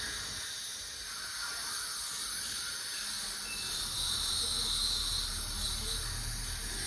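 Steady high hiss, growing brighter about four seconds in and easing off a little before the end.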